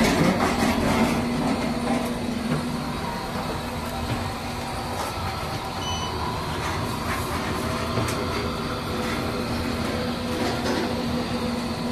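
Steady rumbling hum inside a moving glass passenger elevator, with a constant low drone under it.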